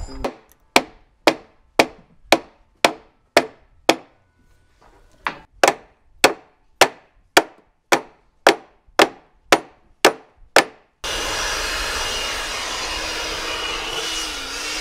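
A hammer striking a wooden plank and wedge block in a steady series of sharp blows, about two a second, in two runs with a short break between, as the garboard plank is worked in against the frames. Near the end a steady mechanical whir starts suddenly.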